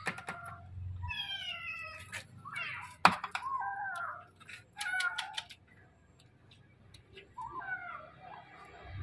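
A kitten meowing over and over, about five or six meows with a short pause past the middle. A few sharp taps or knocks are mixed in, the loudest about three seconds in.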